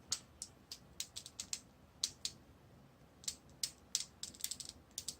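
Irregular light clicks and ticks of hard plastic parts on an action figure being twisted and pried at by hand, a couple of dozen small sharp clicks, busiest in the last second and a half.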